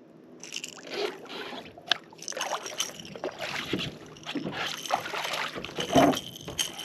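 Irregular water splashing and knocking at the side of a fishing boat, with a sharp knock about two seconds in.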